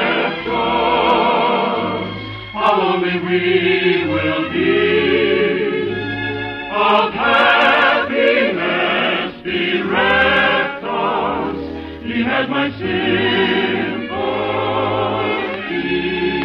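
Operetta number sung by voices and a choir with wide vibrato over an orchestra, phrase after phrase with short breaths between. It has the thin, top-cut sound of an early-1950s radio broadcast recording.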